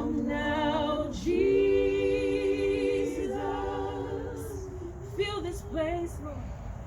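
Voices singing a slow worship song unaccompanied, holding long sustained notes, with a few shorter, wavering phrases near the end.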